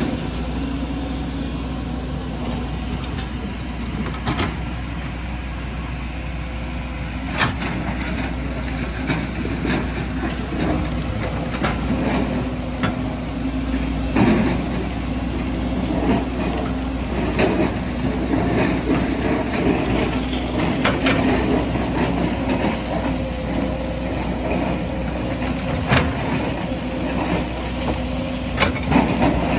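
Hydraulic excavator's diesel engine running steadily while it digs, with scattered sharp knocks and clatter of rock and soil against the bucket.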